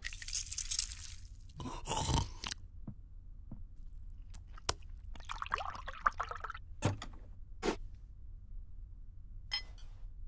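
Kitchen sounds in quick succession: an egg sizzling in a frying pan at the start, several sharp clicks and knocks, then milk pouring into a mug of coffee for about a second and a half a little past the middle.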